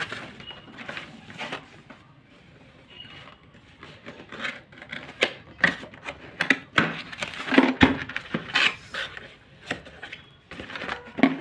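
Cardboard product box being handled and its end flap pulled open: irregular rubbing, scraping and knocks, sparse at first and denser and louder from about four seconds in.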